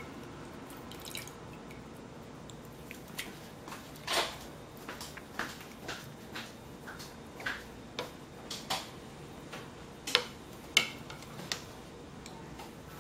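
A toddler eating from a bowl with a spoon: scattered light clicks and taps of the spoon in the bowl, mixed with small wet mouth sounds, with no even rhythm. One longer smeared sound comes near the middle and the two sharpest clicks come near the end.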